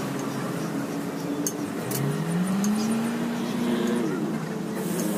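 A motor vehicle engine running, its pitch rising about two seconds in as it revs, over a steady background, with a few light metal clinks from nuts and tools being handled.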